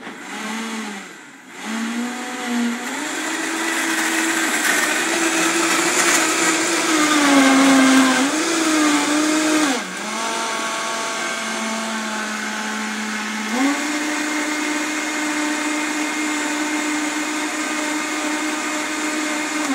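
Vitamix blender motor running loud, blending a thick green smoothie of spinach, bananas and ice. Its pitch shifts as the speed dial is turned: it drops about ten seconds in, then climbs back a few seconds later to a steady high speed.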